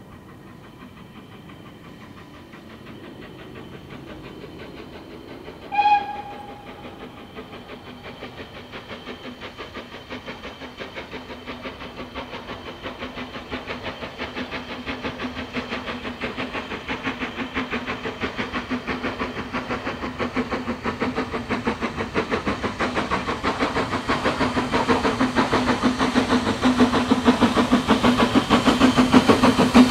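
Steam locomotive approaching under power, its exhaust beats coming in a fast, even rhythm and growing steadily louder. About six seconds in, one short blast of its whistle sounds.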